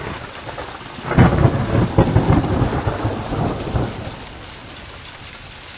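Steady rain with a thunderclap. A low rumble swells, breaks sharply about a second in into a loud rumble with several cracks, rolls on for about three seconds and dies away, leaving the rain.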